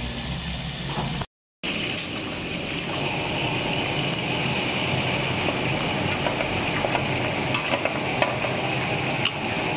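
Tap water running into a steel bowl of jengkol slices. After a short break, red ground spice paste sizzles as it hits hot oil in a wok, as a steady frying hiss with a few sharp ticks.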